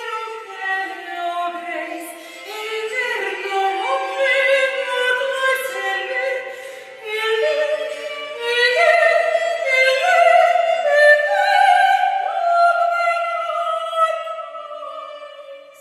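A woman singing a Spanish Baroque song in a classical, operatic style, moving through sustained notes; the phrase fades away near the end.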